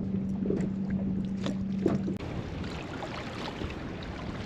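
Wind on the microphone and water lapping and slapping against a kayak hull, with a steady low hum that cuts off suddenly about two seconds in.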